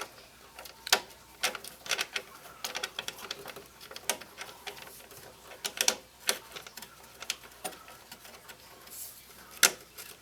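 Irregular sharp clicks and taps of CPU cooler mounting hardware being handled and fitted into place, a few strong clicks standing out among lighter ones.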